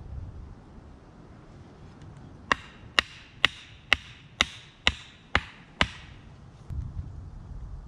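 A wooden stake being driven into the ground with a hammer: eight sharp knocks, about two a second, each with a short ring.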